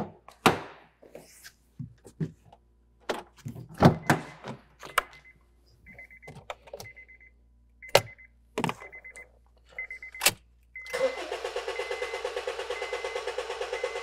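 Clicks and knocks and a car's warning chime beeping, then, about three seconds from the end, the starter cranking the 2013 Honda Fit's 1.5 L four-cylinder engine with an even, steady rhythm, without it firing. The injector fuse is pulled for a relative compression test, and the cranking sounds even.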